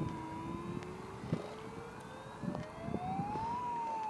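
Radio-controlled model fireboat: a whine that climbs slowly in pitch for about three seconds, peaks near the end, then begins to fall, over a rumbling background.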